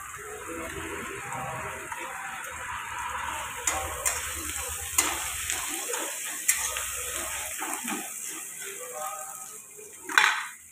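Sliced onions sizzling in hot oil in a metal wok, stirred with a metal spatula that clicks and scrapes against the pan several times, with a louder scrape near the end.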